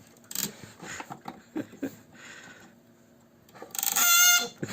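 Metal parts of a car's windscreen wiper linkage being handled, with light scraping and clicks, then a loud squeak lasting under a second near the end.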